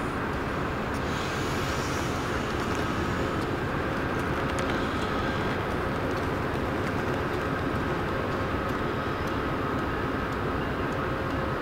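Siemens ACS-64 electric locomotive hauling Amfleet coaches, moving slowly with a steady rumble, a faint high steady whine and a few light clicks.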